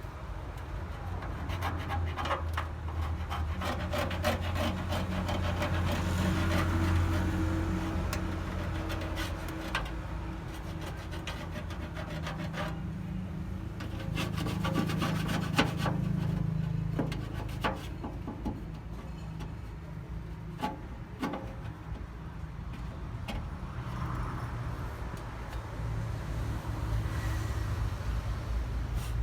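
Hand scrubbing or sanding of a rusted metal surface: repeated irregular rasping strokes, over a steady low hum.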